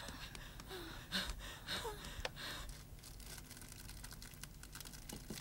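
A few faint gasps and breaths, then a straw-and-twig cooking fire crackling with many quick small snaps from about three seconds in.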